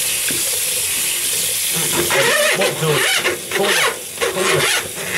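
Water running from a tap into a bathroom hand basin, a steady splashing hiss. From about two seconds in, a man's voice talks over it.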